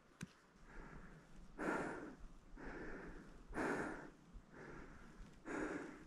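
A hiker's hard breathing while climbing a mountain trail under a heavy pack: rhythmic breaths about one a second, every second one a stronger exhale.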